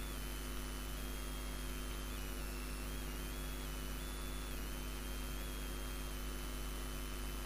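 Steady electrical mains hum, with a faint high whine that shifts up and down in pitch in small steps.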